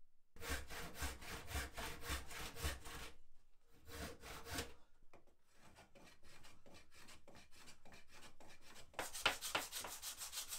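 A hand tool rubbing back and forth across the worn wooden top of an antique chair arm, smoothing it down. There is a fast run of strokes, about four or five a second, then a short pause, quieter strokes, and a louder flurry near the end.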